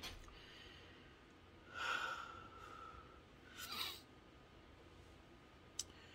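A woman sniffling while holding back tears: two short sniffs about two seconds and three and a half seconds in, then a faint click near the end.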